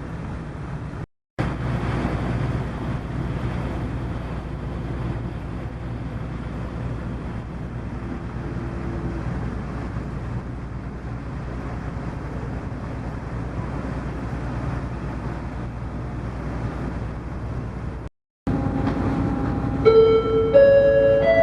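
Ferry's steady engine drone and rumble with a hiss over it, cutting out for a moment twice. Near the end a short melody of clear, chime-like notes sounds over it, stepping from one pitch to the next.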